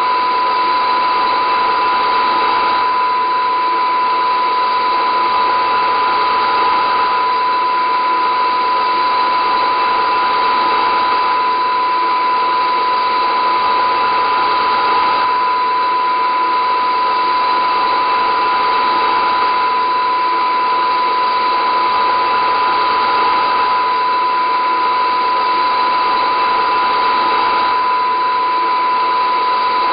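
A loud, unchanging drone: one strong steady high tone over a dense whirring hiss with fainter tones woven in, without pauses or changes.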